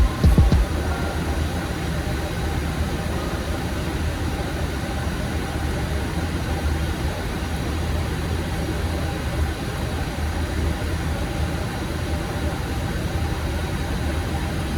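Steady cockpit noise of a Boeing 737 MAX in flight: airflow rush over a low engine hum. There are a few low thumps in the first half-second.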